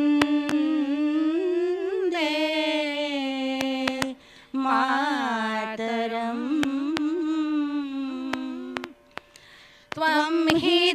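Two women singing together into microphones, a slow melody with long held notes that bend up and down, without instruments. The singing breaks off briefly about four seconds in and again about nine seconds in.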